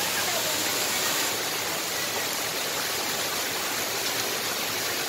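Small waterfall pouring over granite boulders into a rock pool: a steady rush of falling water.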